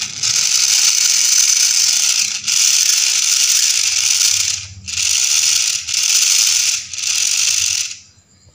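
Small electric motor driving a homemade RC car gearbox, running with a loud gear rattle and cutting out briefly four times before it stops near the end.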